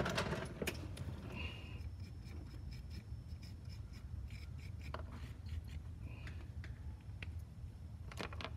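Faint handling noise: light clicks, taps and rubbing as a pen and small tools are worked against a circuit board, with two brief high squeaks and a steady low hum underneath.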